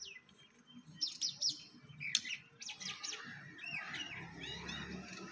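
Small birds chirping repeatedly in short high notes and little whistled phrases, over the scrape and clink of a hand trowel digging into soft garden soil.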